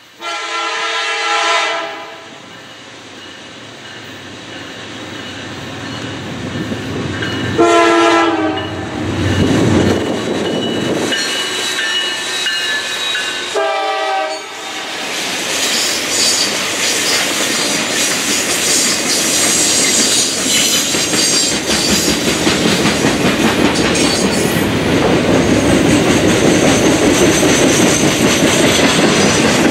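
A freight train's diesel locomotive horn sounds three chord blasts, the first about two seconds long, the next about a second long near the middle and the last brief, over the rolling of a passing freight train of autoracks and Triple Crown RoadRailer trailers. Through the second half the rumble and clickety-clack of the passing cars, with a high rail hiss, builds steadily louder.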